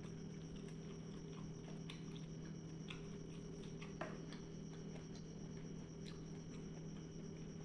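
Soft, scattered mouth clicks and chewing sounds of someone eating rice, over a steady low electrical hum and a faint high whine.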